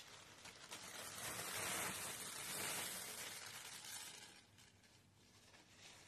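Faint rustling and crackling of a thin paper napkin as its two plies are peeled apart by hand. It swells over the first second or so and dies away after about four seconds.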